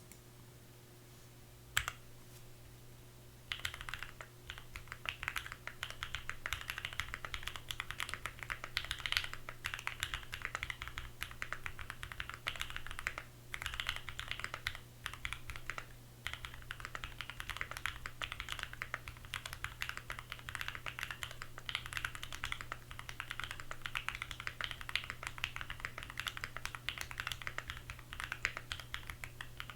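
Typing on a Keychron Q1 mechanical keyboard with lubed Kiwi tactile switches, an aluminium plate and foam and tape mods. After a single keystroke it breaks into fast continuous typing a few seconds in, with two brief pauses.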